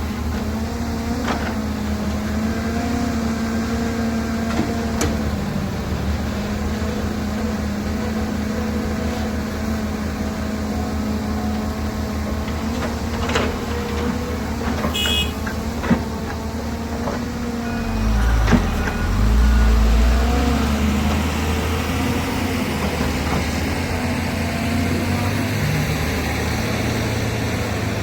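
Heavy diesel earthmoving machinery, a Volvo excavator loading dumpers in a mine, running steadily with a few sharp clanks. About 18 seconds in a loud deep rumble swells for two seconds or so, then the engine settles back to its steady note.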